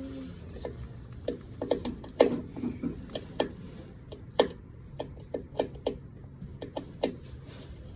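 Sharp metallic clicks and clinks of hand tools and brake parts, coming unevenly every half second or so, as bolts and the brake line are refitted to a truck's rear wheel cylinder.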